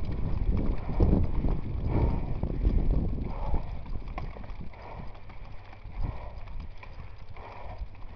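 Mountain bike being ridden over rough ground, knocking and rattling irregularly over bumps, with heavy wind buffeting on the microphone that eases after about three seconds.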